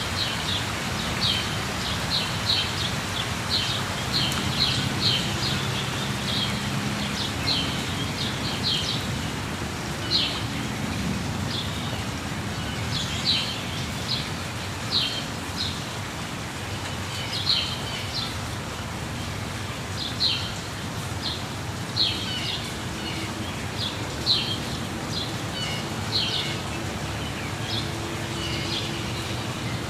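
Steady rushing of a waterfall with birds chirping over it: short, high chirps repeating every second or two, sometimes in quick clusters.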